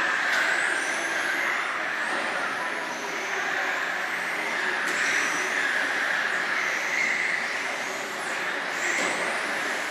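Several radio-controlled electric touring cars racing on a carpet track, their motors whining in high glides that rise and fall again and again as the cars accelerate and brake through the corners.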